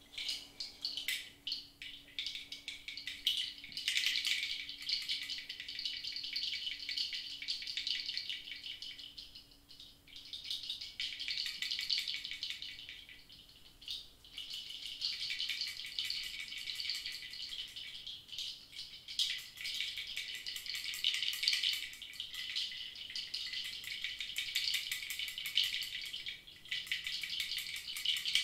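A hand rattle shaken in long swells of dense, fine rattling, with short lulls about ten and fourteen seconds in. A faint low steady tone dies away during the first third.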